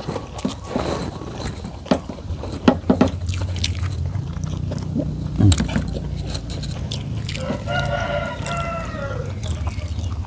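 A rooster crows once near the end, one long call of about two seconds that falls in pitch as it ends. Short clicks and smacks of people eating with their hands from plates come through the whole time.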